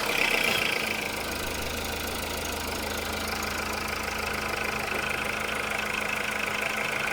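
Skoda Rapid's 1.6-litre CFNA four-cylinder petrol engine idling just after start-up, a little louder for about the first second and then steady. An exhaust leak is still blowing somewhere underneath, even after the manifold cracks were welded.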